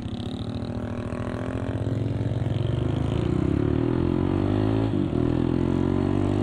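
Sport motorcycle's engine pulling away and accelerating, its note rising steadily and growing louder. About five seconds in it breaks briefly and then runs on steadier, as at a gear change.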